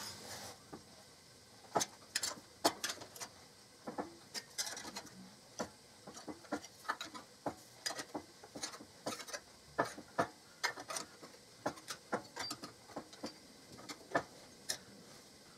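A long run of irregular light metallic clicks and taps as thin plasma-cut sheet metal is clamped in a steel bench vise and its relief-tabbed sides are bent up by hand.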